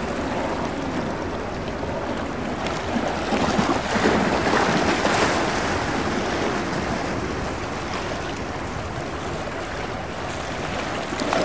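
Waves washing on the shore and wind buffeting the microphone, swelling louder about four seconds in, over the faint low drone of a V-22 Osprey tiltrotor flying away.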